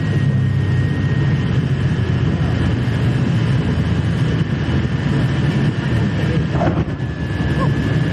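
Twin Pratt & Whitney R-1830 radial engines of a Consolidated PBY Catalina flying boat running steadily, heard from aboard the aircraft: a loud, even low drone with a thin steady whine above it.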